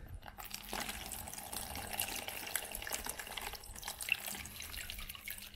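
Water pouring from a bottle into the plastic tray of a self-heating hot pot, splashing onto the heating pack at the bottom to activate it. The pour runs steadily and tails off near the end.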